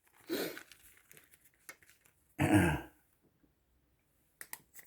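A man clears his throat with a cough about two and a half seconds in, after a short breathy sound near the start. A few faint clicks come near the end.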